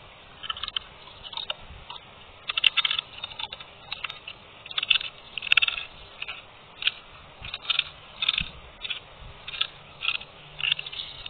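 Dry clay being bitten and chewed: irregular crisp crunches, one or two a second.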